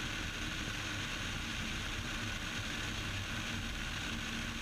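Cessna 172's engine and propeller in flight, a low steady drone with a faint hum under a hiss.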